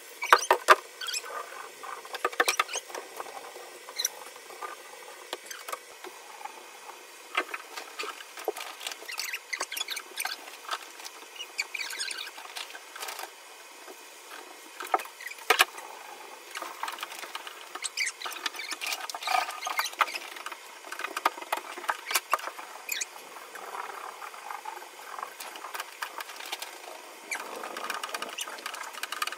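Scrub sponge rubbed hard over a wet, soapy bathtub surface: irregular squeaks and rubbing strokes.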